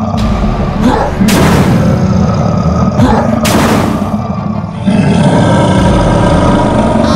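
Cartoon sound effects: a monster roaring and grunting, with two loud booming hits about two seconds apart, over background music.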